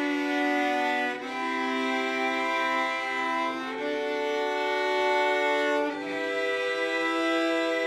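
Cello trio of two acoustic cellos and an electric cello bowing long sustained chords together. The chord changes about every two and a half seconds, three times.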